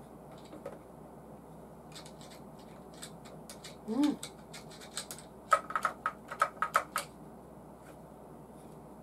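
Hard plastic model-kit parts clicking and tapping as they are handled and fitted, with scattered ticks and then a quick run of sharp, louder clicks about five to seven seconds in. A short hum of a voice near four seconds in.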